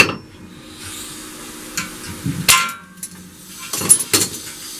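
Metal-on-metal clanks from a steel C-clamp and a cut length of bicycle chain being handled on a steel stand: four sharp knocks, the loudest about halfway through with a brief metallic ring, and two close together near the end.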